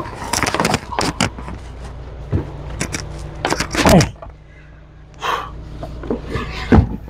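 Wooden packing crate being carried and shoved into the cargo area of a car, with a series of knocks and scrapes as the wood bumps against the boot; the loudest thuds come about four seconds in and near the end. A low steady hum runs underneath from about two seconds in.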